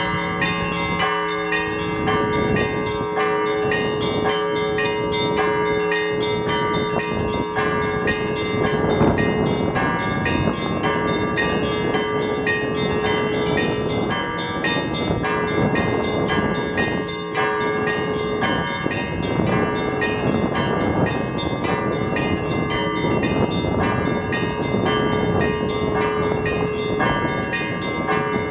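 Orthodox church bells rung by hand in a continuous, rapid peal of many overlapping bells, with strong wind gusts buffeting the microphone.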